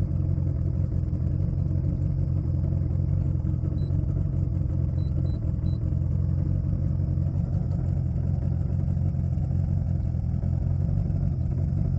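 A boat motor running steadily at a constant speed, a low even rumble. A few faint short high beeps come briefly around the middle.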